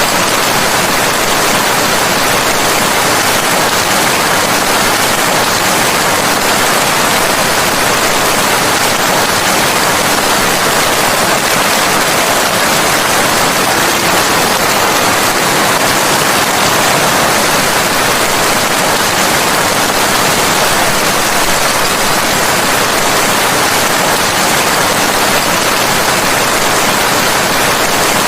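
Steady heavy rain, a dense even hiss that does not change.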